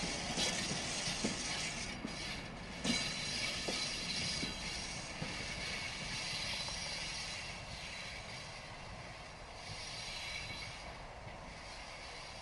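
Freight train passing: the last wagons' wheels knock sharply over rail joints several times during the first few seconds. Then the rolling noise of the SM42 diesel shunting locomotive at the rear fades steadily as it draws away.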